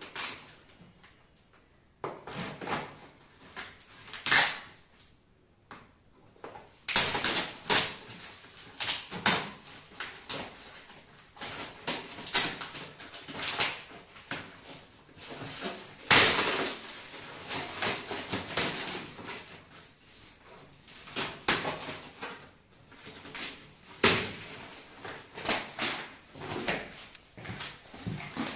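Corrugated cardboard box and its packing tape being torn open by hand: irregular bursts of ripping and tearing, starting about two seconds in after a quieter opening.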